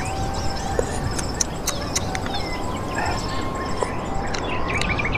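Birds chirping in woodland over a steady background hiss, with a few short clicks about a second or two in.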